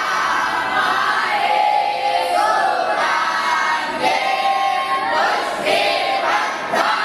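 A group of young Brahmin students (batuks) chanting together in unison, with long held notes.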